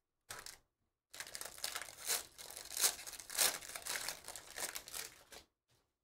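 Shiny plastic wrapper of a trading-card pack being crinkled and torn open by hand. A brief crinkle comes first, then about four seconds of continuous crinkling with a few louder tears.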